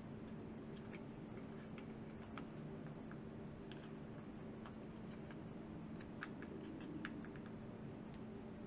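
Faint, scattered light ticks and crackles of fingers handling a small cardboard craft box and dried moss, a few more bunched together around two thirds of the way through, over a steady low hum.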